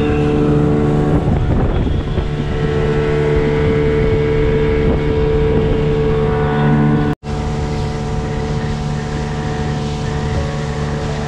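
Gladiator 9.9 hp outboard motor running steadily with the boat under way, with some wind on the microphone. The sound drops out for an instant about seven seconds in.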